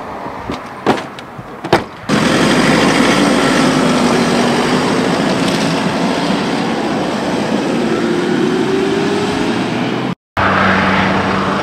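A few sharp knocks as gear is loaded and the SUV's rear is shut. From about two seconds in, the SUV's engine runs under a loud rushing noise, its note rising toward the end as it pulls away.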